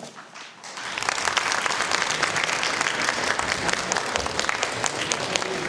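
Audience applauding, a dense steady clapping that starts about a second in.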